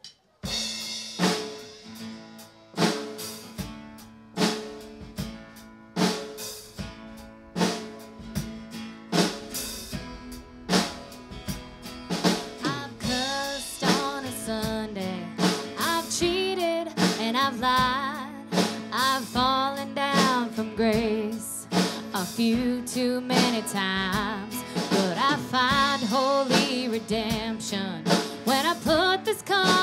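Live country band opening a song: the drum kit beats out a steady rhythm under guitars and a held low note, starting suddenly after a moment of quiet. A woman's lead vocal comes in about twelve seconds in and carries on over the band.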